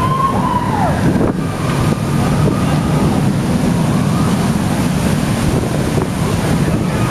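Vekoma suspended looping coaster train running along its steel track overhead, mixed with a steady rushing noise of water spray and wind on the microphone.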